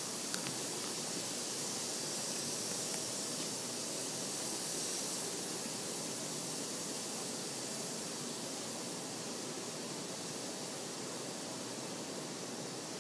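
Steady, even hiss of background noise, brightest in the upper range, with one faint click just after the start.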